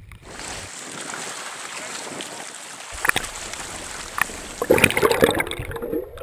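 Water heard through a camera held underwater: a steady rushing hiss, a couple of sharp knocks in the middle, then louder sloshing and bubbling near the end.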